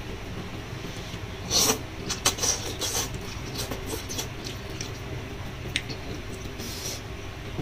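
Noodles slurped from chopsticks, with chewing and small wet mouth clicks: a loud slurp about one and a half seconds in, a run of clicks just after, and another slurp near the end, over a steady low hum.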